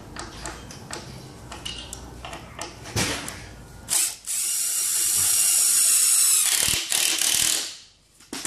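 Cordless drill driving a GRK screw through a metal standoff base into OSB: a few short, stop-start bursts and clicks, then about four seconds in the drill runs loud and steady for about two and a half seconds before stopping.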